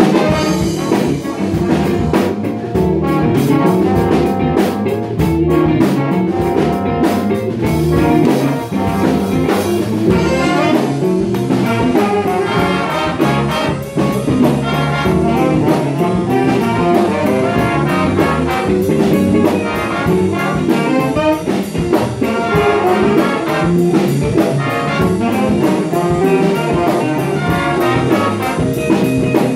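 School jazz big band playing: saxophone, trumpet and trombone sections over a drum kit, with a steady cymbal beat from about ten seconds in.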